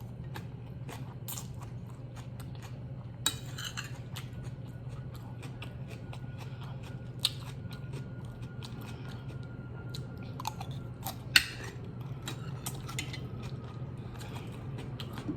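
Close-up chewing and mouth sounds of someone eating stewed oxtail and rice, with scattered sharp clicks of cutlery and dishes, the loudest about eleven seconds in, over a steady low hum.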